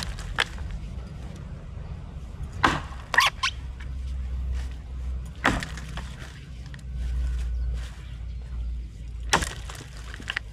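Felling axe chopping into wood: sharp blows several seconds apart, some in quick pairs or threes, over a steady low rumble.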